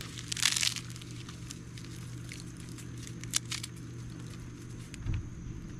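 Campfire tinder and kindling being lit: a short rasping, crinkling burst about half a second in, then scattered sharp crackles.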